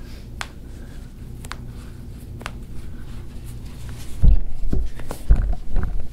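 Hands and a cloth towel handling a patient's foot on a treatment table, with a few faint clicks, then several dull low thumps about four seconds in as the foot is regripped.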